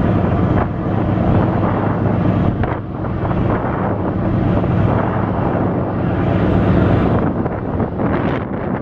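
A large offshore supply vessel's engines running steadily with a low hum as the ship moves slowly past close by. Wind buffets the microphone throughout.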